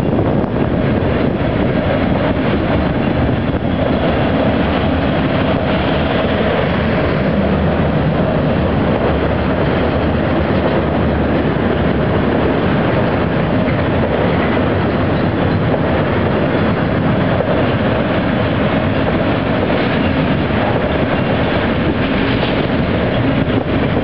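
Autorack freight cars rolling past: a steady, continuous noise of steel wheels running on the rails.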